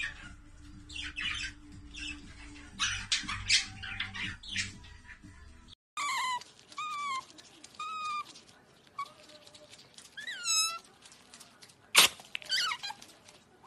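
Budgerigar chicks giving raspy squawks for the first six seconds or so. Then a young otter makes a dozen or so short, high chirping squeaks, many rising and falling in pitch. A single sharp click comes near the end.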